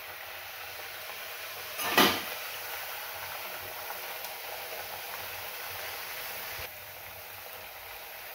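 Mixed-flour puris deep-frying in hot oil in a kadai: a steady sizzle, with a short loud burst about two seconds in, and the sizzle dropping a little near the end.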